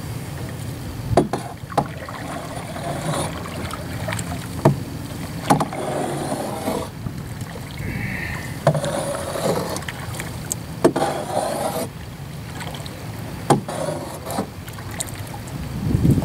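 Double-bladed paddle stroking a plastic canoe along: blades dipping and pulling through the water with splashing and dripping, one stroke every couple of seconds. Several sharp knocks at irregular intervals.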